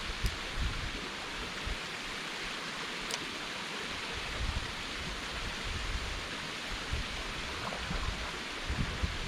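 Steady outdoor rushing noise, like flowing water, with uneven low rumbles of wind buffeting the microphone.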